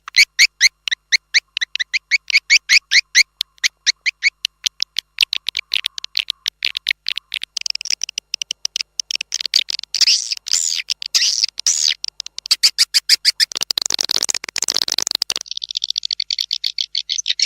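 Swiftlet lure call track, an 'external' swiftlet-farming call: rapid high chirps repeated several times a second, growing into dense chattering about halfway and ending in a steady high buzzing trill near the end.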